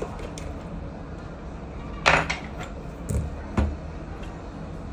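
Small tool clicks and scrapes of a screwdriver and a plastic pry tool working on the parts inside an opened smartphone. There is a short, louder sound about two seconds in, and smaller knocks about a second later.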